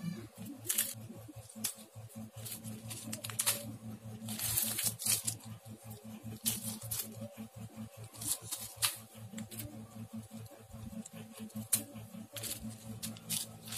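Small zip-lock plastic bags of sequins and beads crinkling and rustling in irregular bursts as they are handled, over a low steady hum.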